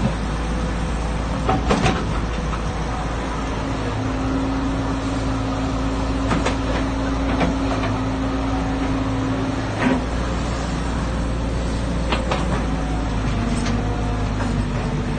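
Caterpillar E110B excavator's diesel engine running steadily as the machine digs, with a held steady hum for several seconds in the middle while the arm and bucket work. A few sharp metallic clanks from the bucket and boom linkage are scattered through.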